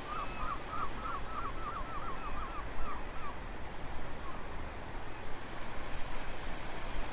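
Steady rushing background noise, with an animal, most likely a bird, calling a fast run of short repeated notes, about six a second, during the first two seconds before it fades out.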